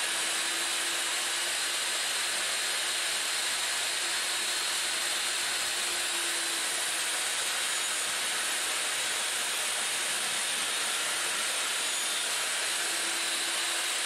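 Portable table saw running steadily, its two stacked 1/8-inch blades cutting a quarter-inch groove for a drawer bottom as boards are fed along the fence.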